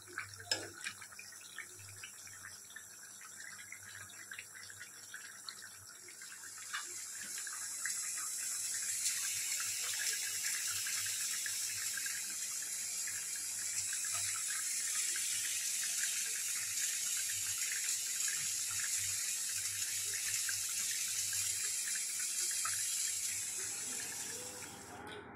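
Chicken masala curry bubbling and simmering in a kadai, a steady hiss that grows louder about seven seconds in and cuts off suddenly near the end. A few light clicks of a stirring spoon come at the start.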